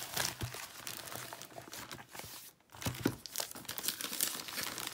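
Packaging being handled and unwrapped, crinkling and crackling with a few louder crackles, briefly pausing about halfway through.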